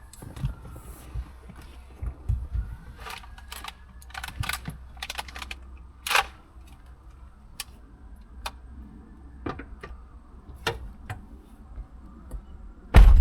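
Scattered sharp clicks and knocks over a steady low rumble, with one loud thump near the end.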